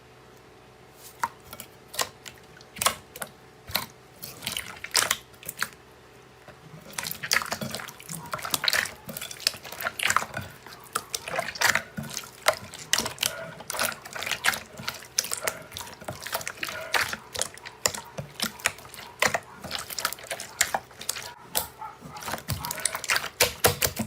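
Slime being squished and kneaded by hand: a run of wet, sticky clicks and pops, sparse at first and coming thick and fast from about seven seconds in.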